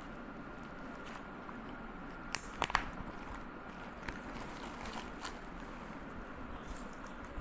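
A few light clicks and taps over a steady low background hum, the loudest a quick pair of sharp clicks about two and a half seconds in.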